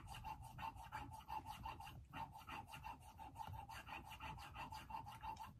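Barber's scissor blade stroked back and forth on a whetstone: a faint, steady run of quick, even scraping strokes.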